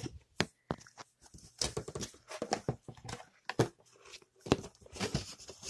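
Irregular rustling, scraping and knocking of cardboard and packing being handled as an air fryer's box is repacked.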